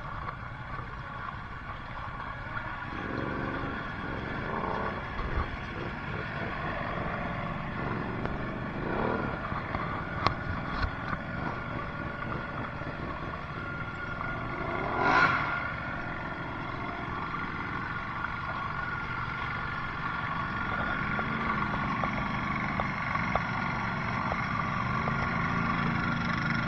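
Four-wheeler engines running, with a sharp rise and fall in revs about fifteen seconds in and a few knocks and clatters.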